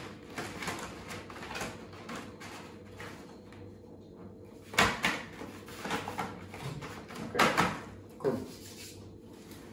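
A cut-to-size mat being moved about on the floor of a wooden birdcage, with soft scraping and rustling. There are sharp knocks about five seconds in and again at about seven and a half seconds.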